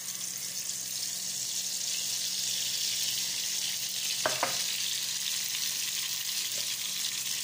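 Blended shallot, garlic and tomato paste sizzling in hot oil in a small frying pan, a steady hiss of frying, with a short pitched squeak about four seconds in.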